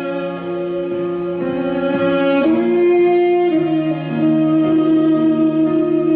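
Morin khuur (Mongolian horse-head fiddle) bowed in a slow melody of long held notes, changing pitch every second or so.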